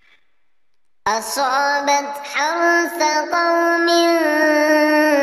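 A voice chanting Qur'an recitation in melodic tartil style. After about a second of silence for a breath, it comes in loudly about a second in and holds long, ornamented notes that waver in pitch.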